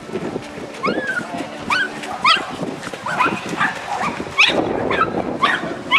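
A dog barking repeatedly in high, yipping barks, about ten in a few seconds.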